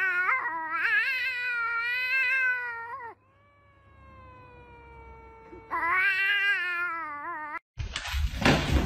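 Domestic cat yowling in long, drawn-out meows: two loud, wavering calls, the first about three seconds and the second about two, with a quieter, smoothly falling call between them. Near the end the calls break off and a loud rushing noise begins.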